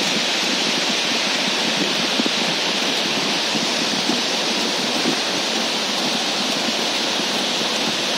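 River water rushing steadily: a constant, unbroken hiss.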